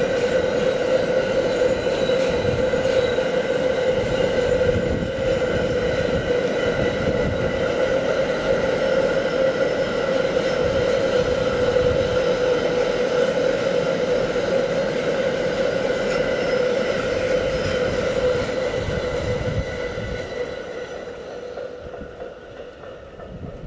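Freight train of loaded Touax car-carrier wagons rolling past, a rumble of wheels on rail with a steady ringing tone over it. The sound fades over the last few seconds as the end of the train goes by.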